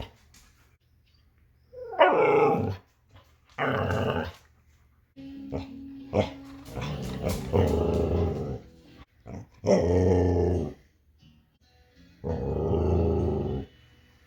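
Two Siberian huskies talking: a string of pitched woo-ing, grumbling calls, each about a second long with short pauses between, running into several calls in a row in the middle.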